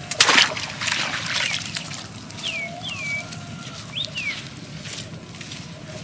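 Water splashes sharply just after the start, then sloshes more lightly as a person wades through shallow water. Four short, high, falling chirps from a small animal come in the middle, over a steady thin high-pitched whine.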